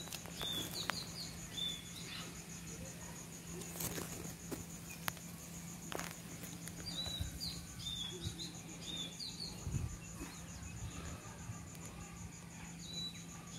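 Outdoor ambience: a small bird gives runs of short, downward-slurred chirps in three bursts over a steady, fast-pulsing insect trill, with a few faint clicks.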